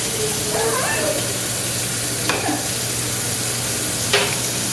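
Kitchen tap running in a steady hiss, with two sharp knocks partway through and near the end.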